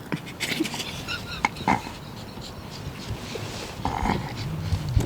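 A man's stifled laughter in short fits, with scattered clicks and rustles of handling.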